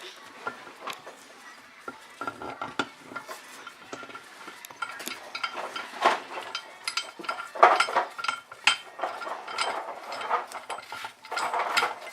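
Metal hand tools clinking, knocking and scraping against an engine cylinder head in irregular bursts, as a valve spring compressor is fitted over an exhaust valve; the loudest clatter comes a little past the middle and again near the end.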